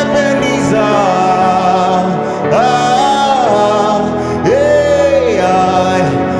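Male gospel singer singing long held notes that swoop up into each phrase, over sustained electric keyboard chords.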